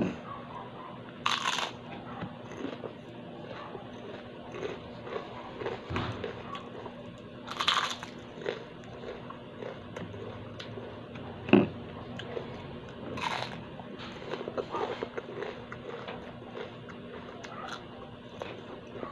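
Close-up crunching and chewing of crispy batter-fried kangkong (water spinach) leaves, irregular crisp bites with a few louder crunches spread through.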